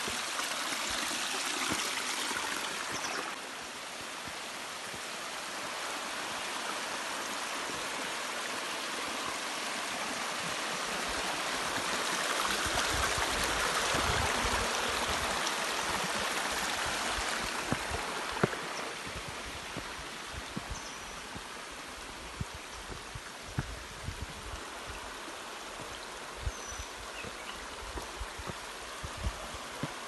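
Small stream waterfalls cascading over granite rock into a pool: a steady rushing, splashing hiss. It drops a little about three seconds in and swells louder around the middle. A few faint high chirps come near the end.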